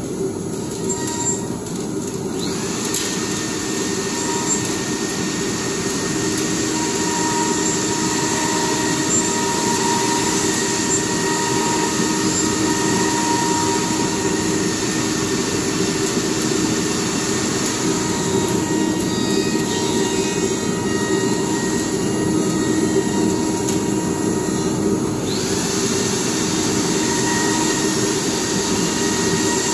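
ATC CNC nesting router machining a board: a steady high spindle whine and cutting hiss over the constant hum of the machine. The hiss brightens about two and a half seconds in, thins for several seconds about two-thirds through, and comes back near the end.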